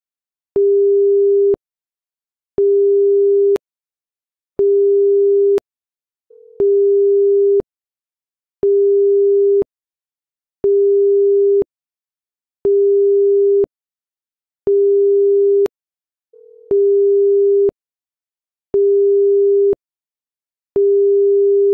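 Electronic beep tone repeating evenly: about eleven one-second beeps of a single steady pitch, one every two seconds, each starting and stopping with a click. A fainter, slightly higher tone comes just before two of the beeps.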